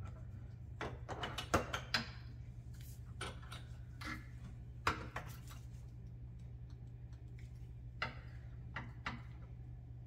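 Scattered clicks, clinks and knocks of hands handling metal parts at a sailboat steering pedestal, in clusters about a second in, around four to five seconds, and near the end, over a steady low hum.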